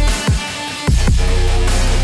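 Background electronic music with deep bass and heavy drum hits. The bass drops out for about half a second near the start, then comes back.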